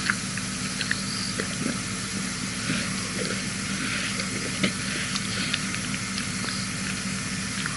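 Lioness licking and grooming her fur: irregular short wet clicks and rasps over a steady hiss and a low hum.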